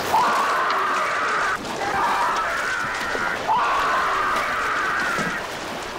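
A man screaming in agony: three long screams, each jumping up in pitch at the start and then held.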